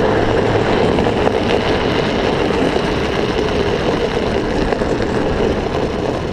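Drift trike riding on asphalt: a loud, steady rolling noise that eases off slightly near the end.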